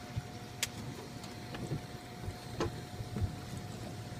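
Open-boat ambience of wind and water noise, with a faint steady hum and a few light knocks scattered through it.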